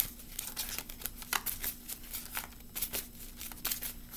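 A deck of tarot cards being shuffled by hand: a quick, irregular run of soft card slaps and clicks.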